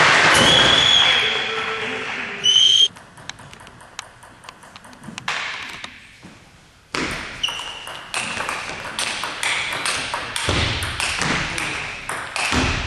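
Table tennis: the celluloid ball ticks sparsely on the table as a player readies to serve. From about eight seconds in comes a fast run of sharp clicks of ball on bats and table during a rally, with brief shoe squeaks on the hall floor and crowd noise at the start.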